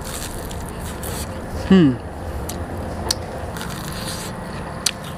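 A person biting and chewing a crispy deep-fried pumpkin cake: a few sharp, scattered crunches, over steady background noise. About two seconds in the eater makes one short, falling 'mm'.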